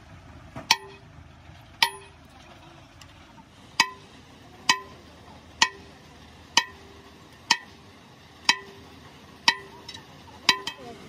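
Sledgehammer blows on the steel shaft and fittings of a jaw crusher's flywheel, about one a second, each with a short metallic ring.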